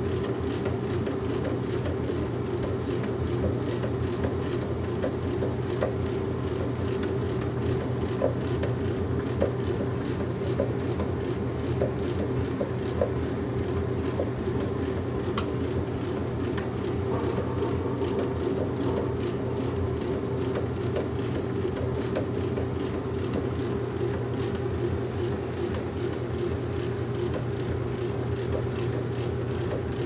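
Washing machine running with a steady, even hum and scattered light ticks.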